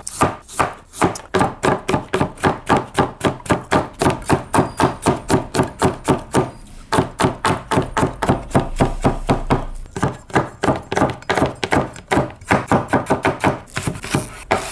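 Chef's knife slicing cucumber on a plastic cutting board in quick, even strokes, about four or five a second, with a short break about halfway. Near the end the knife is cutting green onions.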